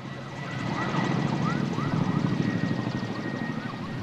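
Firefighting helicopter's rotor beating, with a steady high-pitched whine over it; it grows louder about a second in.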